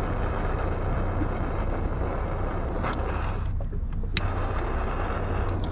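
Handheld gas torch hissing as heat-shrink tubing is shrunk over a bonding-wire connector. The hiss thins out about three and a half seconds in, a sharp click follows a little later, and a steady low hum runs underneath.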